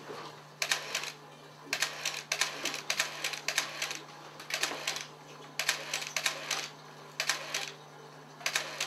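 Camera shutter firing in quick bursts of a few frames each, a burst every second or so, over a steady low hum.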